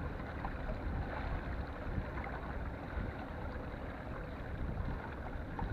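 Steady outdoor wind noise on the microphone, with water washing against the shoreline rocks.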